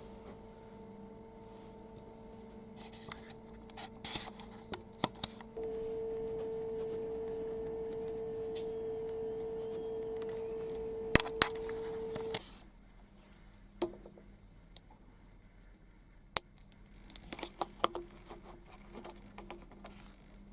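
Scattered small clicks and knocks, with a steady hum that gets louder about five seconds in and cuts off suddenly after about twelve seconds.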